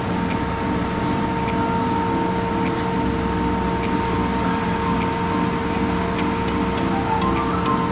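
Truck engine running steadily with a constant whine and a faint tick about once a second.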